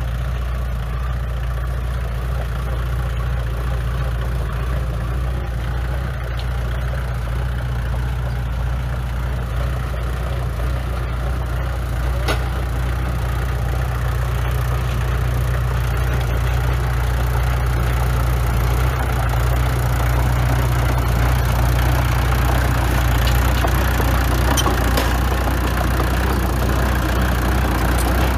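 Diesel engine of heavy construction machinery running steadily with a low drone, growing a little louder past the middle.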